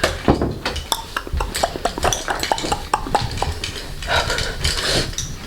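A rapid, irregular string of small clicks and clinks from hard objects being handled, with a rustling noise about four seconds in.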